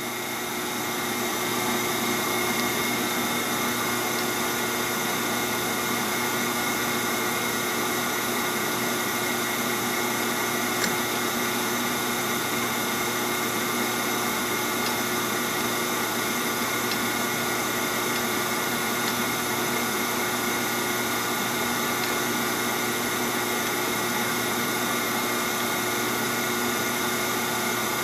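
Metal lathe running with a steady machine hum made of several held tones. It builds over the first couple of seconds and then stays level, with one small click about eleven seconds in.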